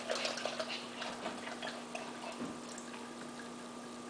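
Heavy whipping cream poured from a carton into an ice cream maker's bowl: faint, irregular liquid patters and glugs that thin out after about two seconds, over a steady low hum.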